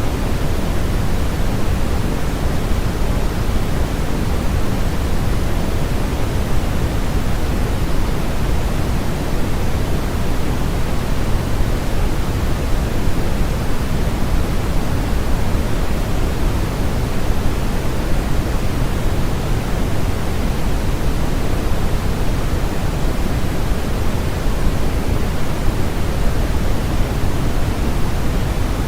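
Steady, unchanging synthetic noise played as a sleep aid (sold as white noise). The hiss carries more weight in the low end than the top, so it sounds deeper and softer than pure white noise.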